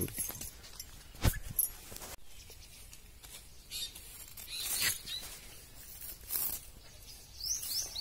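A babbler caught in a fishing net gives a quick run of high, falling chirps near the end, with a single high note in the middle. In between there is a sharp click about a second in and rustling as the net around the bird is handled.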